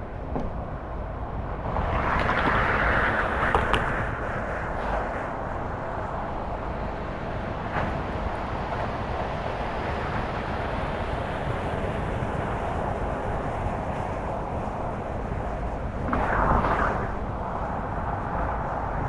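Car driving at road speed: steady tyre and road noise with a low rumble, swelling louder for a couple of seconds near the start and again near the end.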